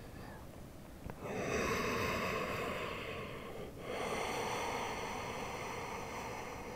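A woman breathing slowly and deeply during a held yoga pose: two long breath sounds, the first starting about a second in and the second just before four seconds, as one counted yogic breath.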